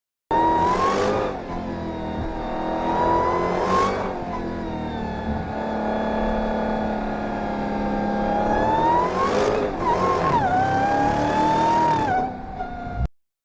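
Sound effect of a motor vehicle engine revving and driving, its pitch climbing and dropping several times as it changes speed. It starts and cuts off abruptly.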